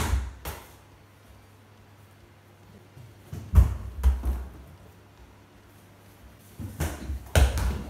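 Dull thumps with rustling as a child dives and lands on a thick futon mattress over a wooden floor, three times: at the start, about three and a half seconds in, and again near the end.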